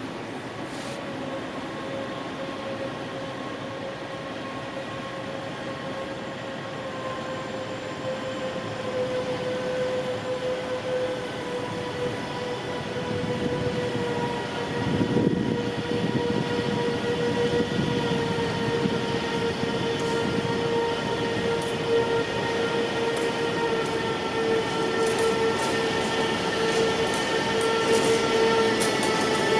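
Freight train hauled by an SBB Cargo Re 482 electric locomotive drawing near and slowing. Its traction equipment gives a steady electric whine that sinks slightly in pitch, over a rumble of wheels that grows gradually louder, with a few sharp clicks near the end.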